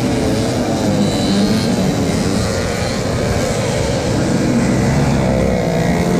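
Several racing mopeds' small 50 cc two-stroke engines buzzing and revving up and down together as they ride past on a muddy track. One bike passes close near the end.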